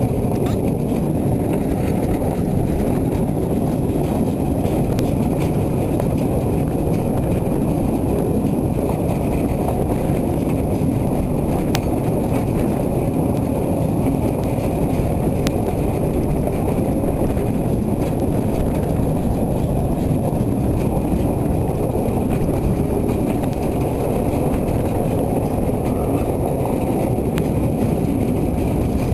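Steady rumble of a narrow-gauge train's wheels rolling along the track, heard while riding on its wagons, with a few faint clicks.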